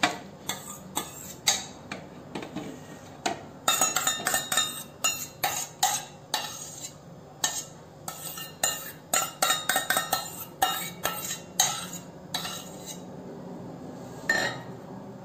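Kitchen utensils clinking, tapping and scraping in quick irregular strokes as cooled milk paste is transferred into a mixer-grinder jar; the taps are sparse at first, come thick and fast through the middle, and thin out near the end.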